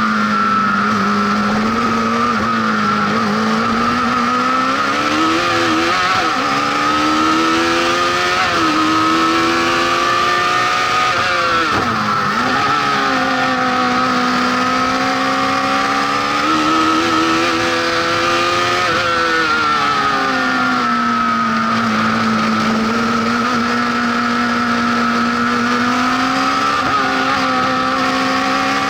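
Honda CBR1100XX inline-four motorcycle engine in a lightweight Fiat 126 prototype, running hard under load, its note rising and falling repeatedly with throttle and gear changes, with a sharp dip and pick-up about twelve seconds in.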